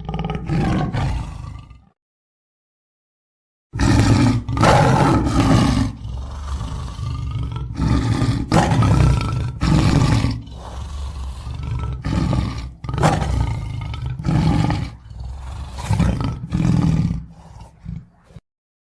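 Lion roaring: one short roar, a break of almost two seconds, then a long bout of loud, pulsing roars that turn into shorter, quieter calls near the end.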